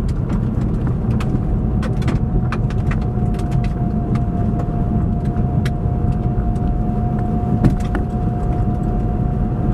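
Car-interior road and drivetrain rumble of a 2005 Jaguar X-Type AWD, with a steady high whine that comes in about a second in and holds at one pitch. It is the cold-weather drivetrain whine near 20 mph, which the owner believes is a gear-lash resonance in the transfer case's 90-degree gear set. Faint scattered clicks and rattles sit over the rumble.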